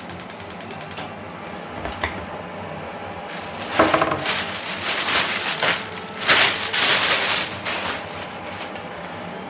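Paper towels rustling and crinkling as they are pulled from a wall cabinet and handled. The rustling comes in bursts about three seconds in and again, louder, from about six to seven and a half seconds, with a brief squeak near four seconds.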